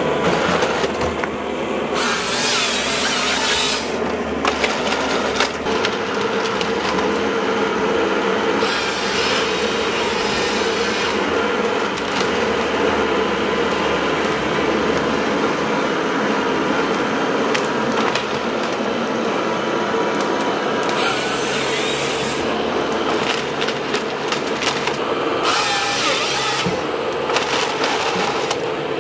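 Vimek 404 T8 compact harvester at work: its 55 kW CAT diesel engine and hydraulics run steadily, and the harvester head's chain saw cuts through stems in four separate bursts of one to two seconds.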